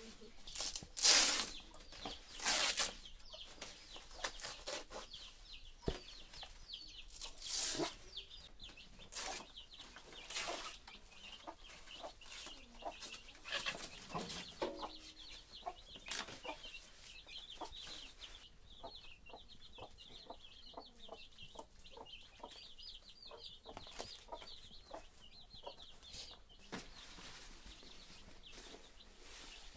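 Chickens clucking around the yard in short, repeated calls. There are a few loud, brief noisy bursts in the first eight seconds.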